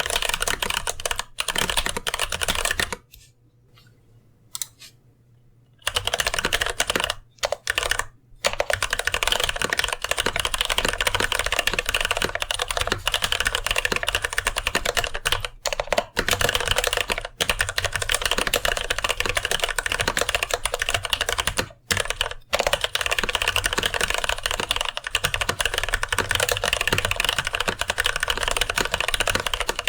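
Fast continuous typing on a mechanical keyboard with TTC Gold Pink linear switches in a brass plate, a dense stream of keystroke clacks. The typing stops for about three seconds a few seconds in, then resumes, with brief pauses later on.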